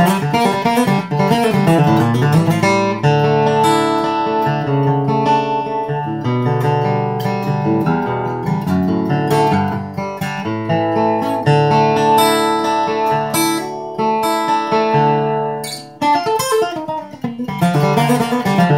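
Steel-string dreadnought acoustic guitar flatpicked with a triangular Chicken Pick 2.1, playing a bluegrass-style run of picked notes and strums with a tone the player calls woody. The playing dips briefly near the end, then carries on.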